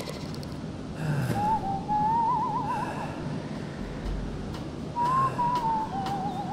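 Soundtrack music led by a whistled melody with a wide vibrato, carried over low sliding notes.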